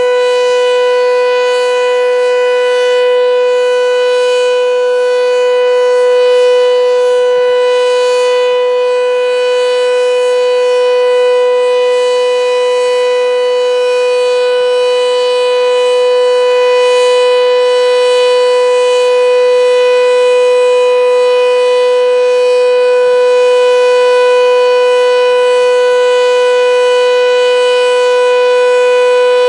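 Sentry 7V8-B outdoor warning siren sounding its steady alert tone, held at one pitch, with a slight rise and fall in loudness.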